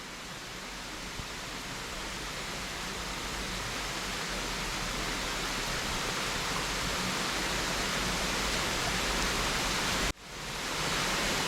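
Small waterfall's falling water, a steady rushing that grows gradually louder and drops out for a moment near the end.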